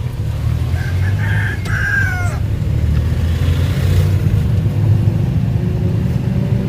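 A rooster crows once, about a second in, over the steady low drone of a passenger vehicle's engine heard from inside the cab.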